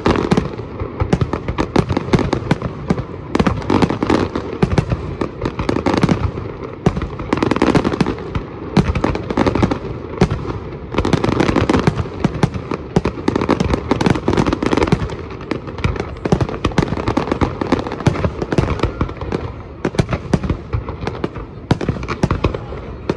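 Fireworks display: aerial shells bursting in a dense, continuous barrage of bangs and crackles, with louder clusters of bursts every second or two.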